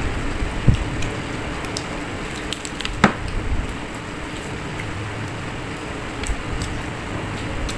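A person eating by hand: chewing and wet, squishy mouth sounds with small clicks, one sharper click about three seconds in, over a steady background hiss.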